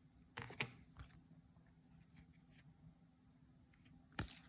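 Faint handling of trading cards: a few short clicks and rustles, about half a second in, at one second and near the end, over a low steady hum.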